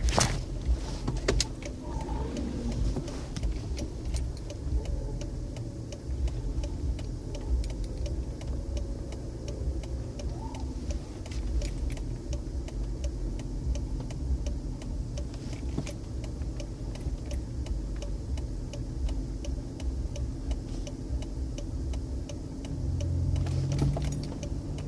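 Lincoln Aviator's 4.6 V8 heard from inside the cabin while driving, with a steady low rumble and a regular light ticking running through it. The owner is chasing a clicking, knocking noise and rough running that he suspects comes from an exhaust leak, an EGR fault or timing chain slack.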